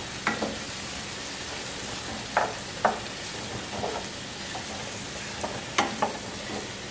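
Onions, red peppers and diced tomatoes sizzling steadily in butter in a stainless steel sauté pan, stirred with a wooden spoon that gives a few short sharp knocks and scrapes against the pan.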